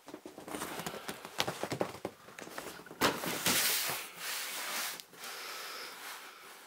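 A large cardboard box being handled on a tabletop: a run of small knocks and rustles, a thump about three seconds in as it comes down, then cardboard rubbing and scraping on the table surface as it is shifted into place.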